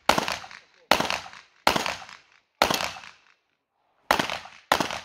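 Six pistol shots fired in a string about a second apart, with a longer pause after the fourth, each shot trailing off in a short echo.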